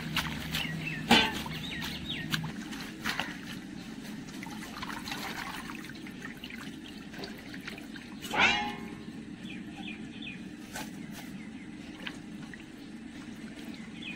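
Water splashing and trickling as neem leaves are washed by hand in a stainless-steel bowl of water, with a sharp knock about a second in and a louder ringing sound about eight seconds in.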